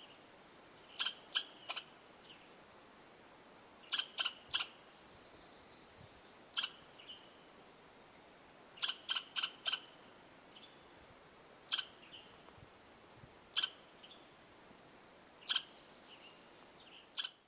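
Sharp, short chip calls from a small animal, coming singly and in quick runs of two to four, with a pause of a second or two between runs.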